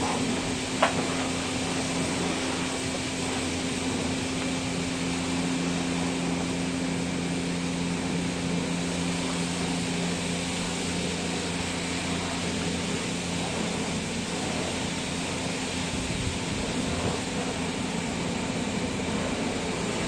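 Self-service car wash's high-pressure pump running steadily: a constant hum with two low steady tones under a hiss of spray. A single sharp click about a second in.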